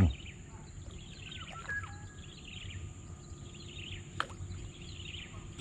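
Outdoor ambience by a pond: small birds chirping over and over in quick, short, falling notes, with a steady high thin hum behind them. A single sharp click about four seconds in.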